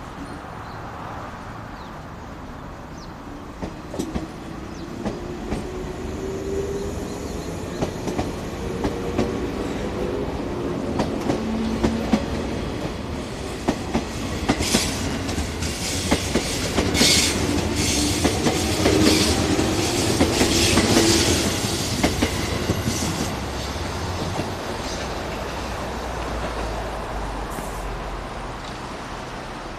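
A JR 117 series electric multiple unit pulling away from a station. The traction motor hum rises steadily in pitch as it gathers speed, with the wheels clattering over the rail joints. It is loudest as the cars pass close, then fades as the train draws away.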